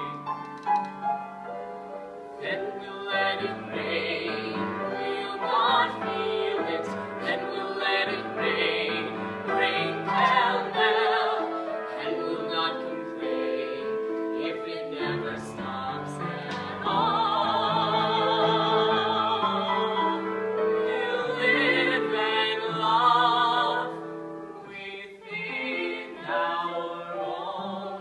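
A soprano and a male singer singing a musical-theatre duet with grand piano accompaniment, the voices trading and joining lines; partway through, a long note is held with a wide vibrato.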